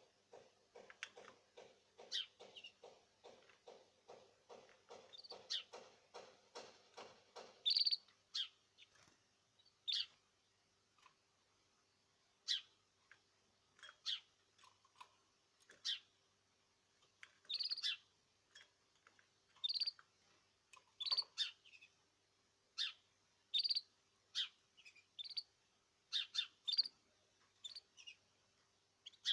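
Caged bird giving short, high single chirps every second or two. For the first eight seconds a quick tapping, about three strokes a second, runs alongside, then stops.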